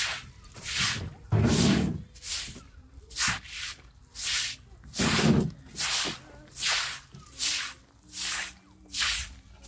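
Short straw hand broom swishing water across a wet concrete floor in rhythmic strokes, a bit more than one a second. Two of the strokes, about 1.5 s and 5 s in, are louder and fuller than the rest.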